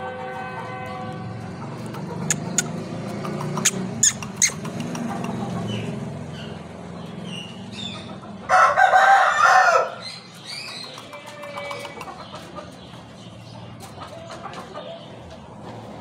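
Aseel rooster crowing once about halfway through, a single call of a little over a second that is the loudest sound. A few sharp clicks come earlier over a low rumble.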